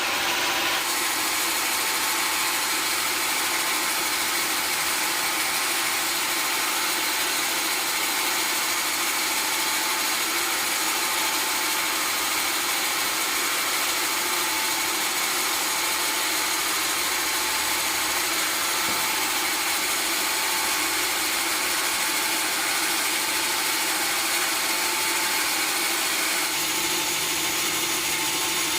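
Sawmill saw cutting timber: a steady, even sawing noise with high whining tones that holds throughout, changing slightly about a second in.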